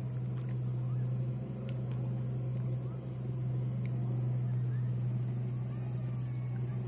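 Steady low motor hum, with a few faint ticks.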